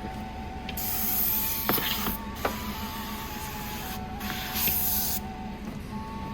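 Pressurised pump sprayer spraying water solution onto a car window in two hissing bursts: the first lasts about a second and a half, the second is shorter and comes about a second before the end.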